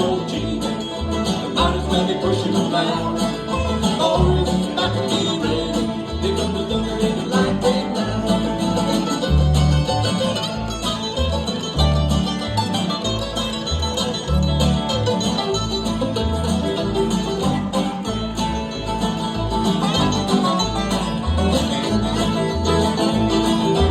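Bluegrass band playing live, an instrumental stretch of the song led by banjo and guitar over low bass notes.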